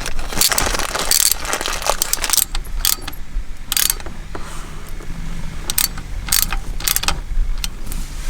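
Socket ratchet clicking in irregular short bursts, driving in the mounting bolts of an aftermarket short shifter.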